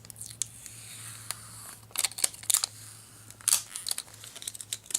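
Hands pulling the tab off a small product box and working it open: scattered clicks, scrapes and crinkles of packaging, over a low steady hum.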